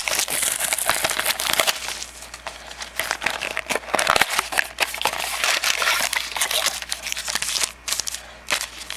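A trading-card mini box being torn open and its packaging and packs handled: a steady crinkling and crackling with many sharp little snaps, easing off near the end.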